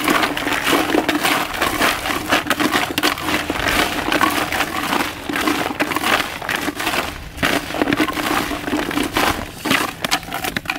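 Frozen, rock-hard carp boilies being stirred in a container after coating in liquid glug: a continuous rattling clatter of hard baits knocking against each other and the container.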